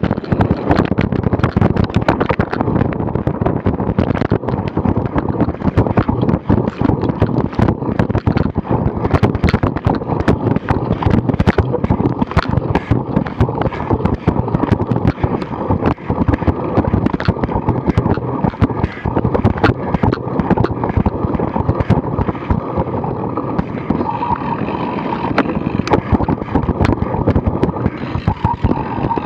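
Cyclocross bike ridden over bumpy grass: the bike and the action camera's mount rattle and knock continuously, with a rush of wind on the microphone.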